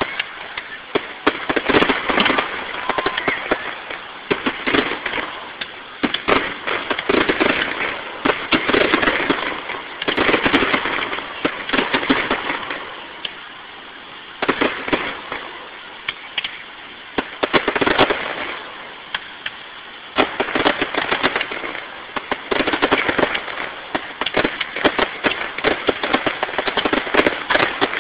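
Aerial fireworks shells bursting in rapid, dense volleys of bangs and sharp pops. There are brief lulls about half a minute's halfway point and again about two-thirds of the way through.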